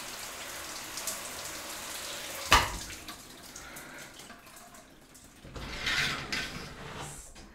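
A steady hiss, broken by one sharp thump about two and a half seconds in, then quieter noise with a rushing swell that rises and fades near the end.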